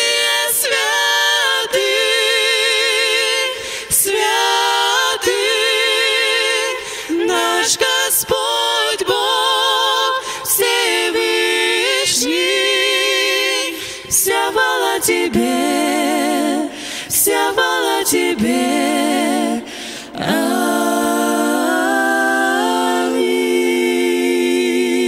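Three women singing a cappella in harmony into microphones, with vibrato on held notes. They finish the phrase on a long held chord near the end.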